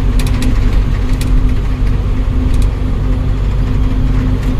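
Ashok Leyland 1214 truck's diesel engine running steadily on the move, heard inside the cab as a constant low drone, with a few short clicks over it.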